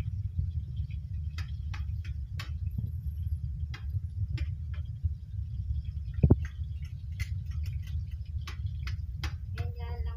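Metal spatula scraping and knocking against a large aluminium wok as food is stirred in it: irregular sharp clicks over a steady low rumble.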